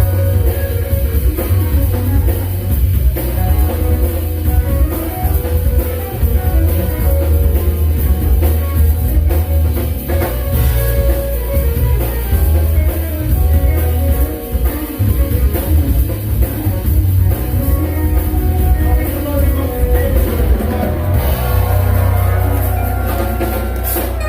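A live band playing, with a drum kit and heavy bass under sustained melodic lines.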